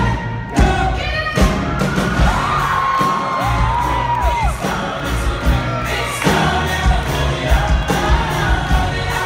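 Live pop-rock band playing through the venue's PA: lead vocal over electric guitars and drums, with the audience cheering and whooping along.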